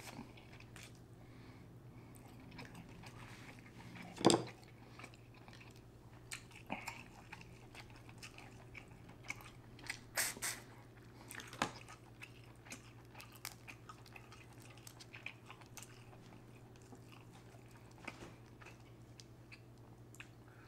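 A person chewing and biting into seafood boil food close to the microphone, with scattered short crunches and cracks, the loudest about four seconds in, over a steady low hum.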